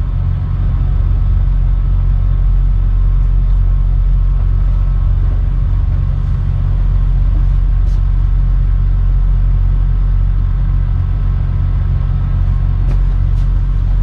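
A 4200-horsepower tugboat's diesel engines running under way: a steady, deep drone.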